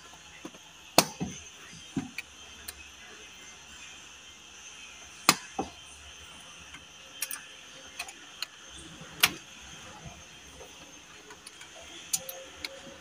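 Car door trim panel being pressed onto the door: its plastic retaining clips and panel give a dozen or so sharp clicks and knocks at irregular intervals, the loudest about a second in, at about five seconds and at about nine seconds.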